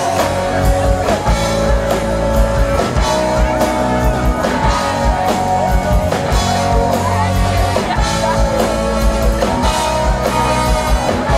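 Live rock band playing loud amplified music, with electric guitars and a drum kit.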